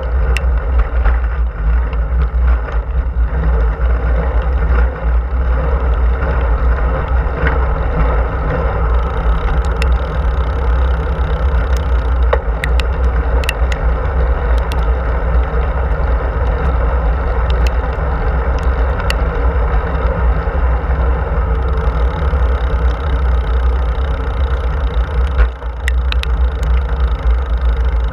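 Steady wind rush buffeting the microphone of a camera riding on a moving road bike, heaviest in the low end, with a few faint scattered clicks.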